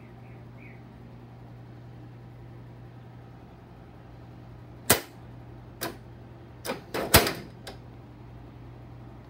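A steady low hum, then about six sharp metallic clicks and clacks over some three seconds, the loudest near the middle, from the work station's adjustable steel legs and their lock tabs.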